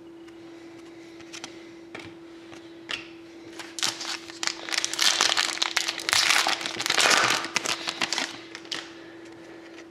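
Plastic packaging crinkling and rustling as trading cards are handled, with a few light clicks first and the crinkling loudest in the middle, over a steady low hum.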